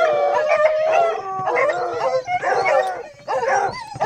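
A pack of hunting hounds baying in chorus on the chase: several dogs giving long, overlapping, wavering howls, with a short break about three seconds in.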